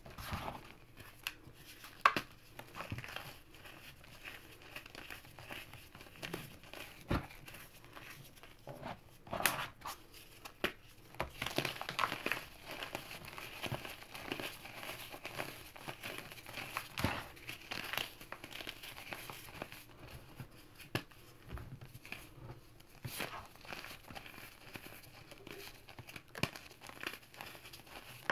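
Fingers crumbling and sifting damp gym chalk and cornstarch powder: soft, irregular crunching and crackling as small crispy chunks break and the powder rubs and falls through the fingers.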